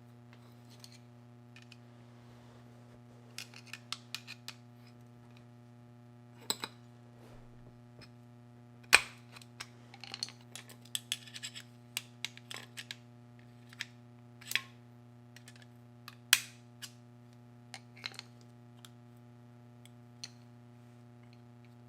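Scattered sharp metallic clicks and clacks of hand work on a washer's clutch assembly as the replacement clutch spring is worked into place, the two loudest knocks about nine and sixteen seconds in. A steady low hum runs underneath.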